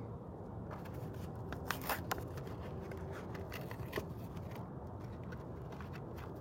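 Plastic blister packaging of a Hot Wheels car being handled and opened: a run of sharp crackles and clicks starting about a second in and stopping near five seconds, over a steady low background rumble.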